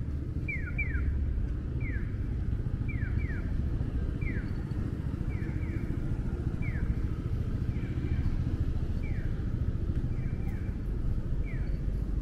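Japanese audible pedestrian crossing signal sounding its 'piyo, piyo-piyo' chirp, which means the walk light is green: short falling electronic chirps, alternating one and two, about every second. Under it is a steady low rumble of street traffic.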